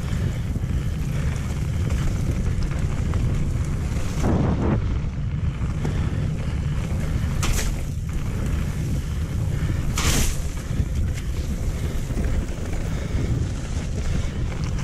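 Wind buffeting the camera microphone on a fast mountain-bike descent, over the steady rumble of tyres rolling on a wet gravel trail. Two short hissing bursts come about seven and ten seconds in.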